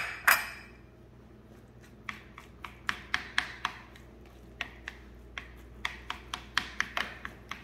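Plastic rice paddle cutting and folding sushi rice in a glass baking dish, mixing in grated ginger. The paddle's strokes scrape and tap against the glass about two or three times a second from about two seconds in, after two sharp knocks at the start.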